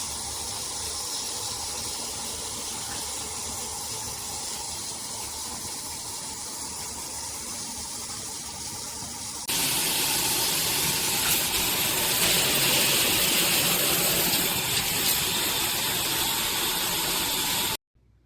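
Briout 5-setting handheld shower head spraying water, a steady hiss of spray. About halfway through the spray becomes louder and brighter, and it cuts off abruptly near the end.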